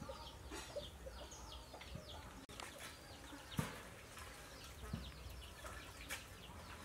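Faint chorus of small birds chirping and chickens clucking, with a few light knocks, the loudest a little past halfway.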